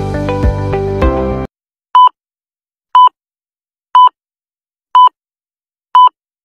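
Music that cuts off abruptly about a second and a half in, then five short identical electronic beeps, one per second, a countdown cue before the dance music starts.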